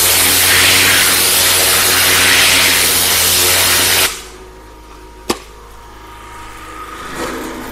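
Kärcher pressure washer spraying a capillary irrigation mat: a loud steady hiss of the water jet over the machine's hum, cutting off abruptly about four seconds in when the spray stops. A quieter hum carries on, with a single sharp knock about a second later as the lance is laid down.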